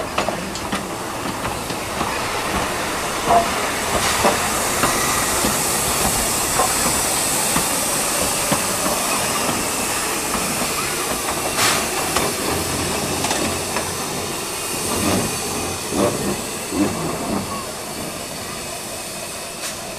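Steam tank engine (JNR Class C11) moving slowly, with a steady hiss of escaping steam and occasional knocks and clanks from the running gear and rails.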